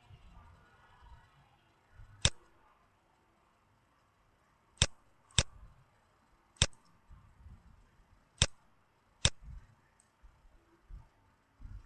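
Computer mouse clicking: six sharp single clicks at uneven intervals.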